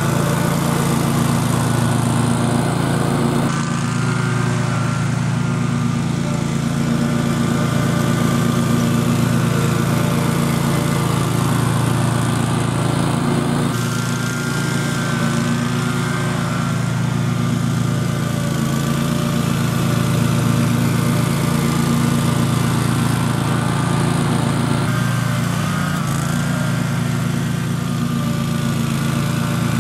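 Cub Cadet RZT zero-turn mower's Kawasaki engine running steadily as the mower drives up and across a steep hill, its tone shifting slightly a few times. The rebuilt hydrostatic drive is pulling on the slope without whining.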